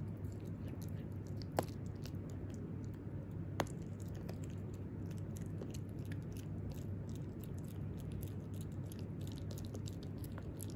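Italian greyhound puppy chewing and gnawing a green dental chew stick held in a hand: a steady run of small clicks and crunches, with two sharper cracks about one and a half and three and a half seconds in.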